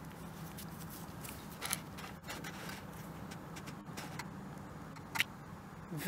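Faint rustling and scraping of a gloved hand digging through loose soil, with a few soft clicks, over a steady low hum.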